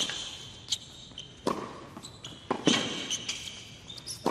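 Tennis rally on a hard court: three sharp racket-on-ball hits about a second and a half apart, with softer ball bounces between them and shoes squeaking on the court surface.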